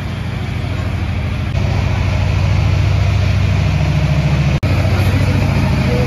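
Engine idling steadily: a loud, low running note with a fast, even pulse, stepping louder about one and a half seconds in.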